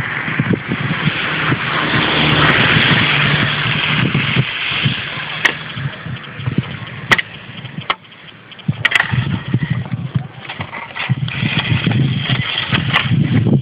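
A vehicle passing on a wet, slushy road: tyre hiss and engine swell over the first few seconds, then fade. A few sharp clicks follow in the second half.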